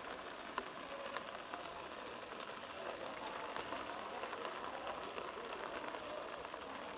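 Open-air rugby field ambience: a steady hiss with faint, distant shouts from players, and a few brief sharp knocks.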